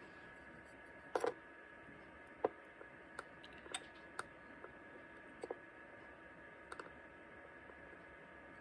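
Light, irregular clicks and taps of tweezers and small metal tools handled on a metal work surface, about a dozen over several seconds, over a faint steady hum.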